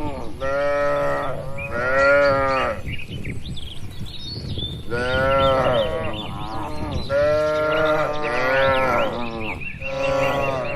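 Cattle mooing, several long calls one after another, each rising and falling in pitch, with a short lull near the middle.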